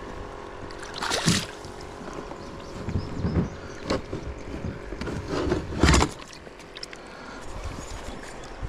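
A few knocks and thuds against a kayak as a freshly caught bass and fishing gear are handled for measuring, the loudest about six seconds in, with a steady rush of water underneath.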